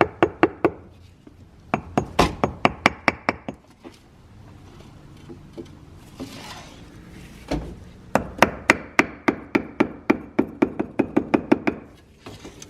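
Quick runs of light, even hammer strikes, about six a second, in three bursts separated by short pauses.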